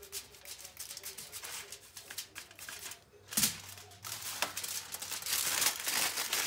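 Aluminium foil crinkling and rustling as it is folded and crumpled by hand around a russet potato, with a single thump a little past halfway and louder, denser crinkling near the end.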